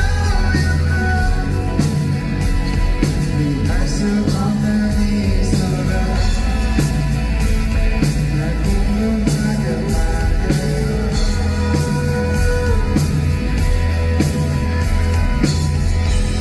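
Live rock band playing loudly, with a steady drum beat, bass, electric guitar and singing, as heard from the hall during a sound check.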